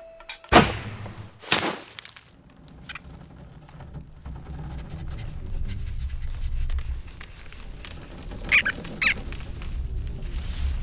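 Cartoon sound effects: a sharp snap about half a second in as a bow is loosed, a second sharp hit a second later, then a low rumble that slowly builds, with two short squeaks close together near the end.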